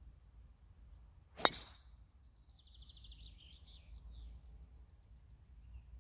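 A driver striking a golf ball off the tee: one sharp crack about one and a half seconds in. A few seconds later a bird gives a short, faint, rapid trill.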